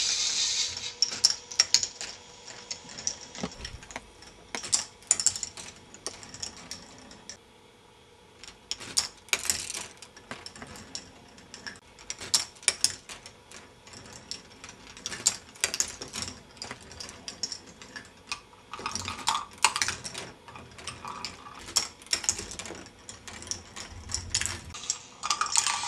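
K'nex ball machine running: plastic balls clicking and clattering along plastic tracks and gear elements in irregular bursts of small knocks, with quieter stretches between.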